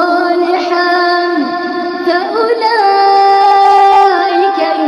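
A woman's voice reciting the Quran in melodic tajweed chant, drawing out long held notes with small ornamental turns in pitch. About midway it steps up and holds one long note for over a second before falling back.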